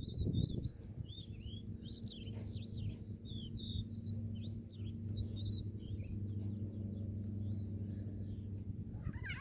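Small birds chirping in quick, short, repeated notes, over a steady low hum. A brief low rumble comes in the first second.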